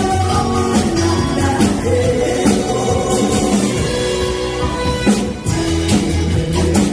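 A Korean trot song performed by a female singer over a backing band with a steady bass beat.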